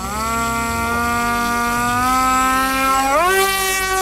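Electric motor and pusher propeller of an FX-61 Phantom flying wing throttling up for a hand launch: a buzzing whine that rises in pitch, holds steady, then rises again about three seconds in.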